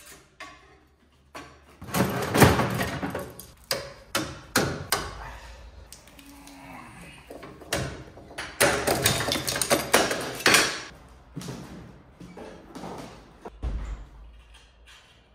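Irregular hammer blows and metallic clatter on car body sheet metal during bodywork repair, busiest about two seconds in and again just past the middle.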